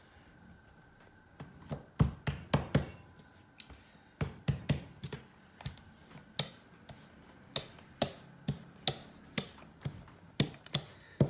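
Small rolling pin clicking and knocking against a marble countertop as tortilla dough is rolled out. The knocks are sharp and uneven, about two a second, with the loudest group of four about two seconds in.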